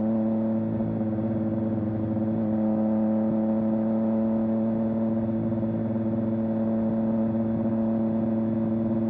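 Triumph Street Triple 765 R's inline three-cylinder engine running at a steady, held engine speed, its pitch barely changing.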